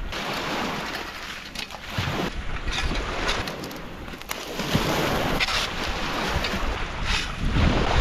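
Wind on the microphone and small lake waves washing on the shore, with a metal shovel scraping and crunching into gravelly sand and campfire coals several times as they are shovelled over buried food.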